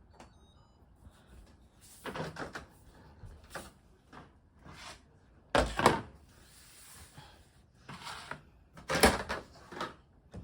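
A series of household knocks and clatters, about six in all: the loudest comes about halfway through, with another strong one near the end.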